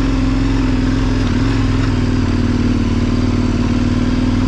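KTM 1090 Adventure's V-twin engine running at a steady, even speed, with no revving or change of pitch.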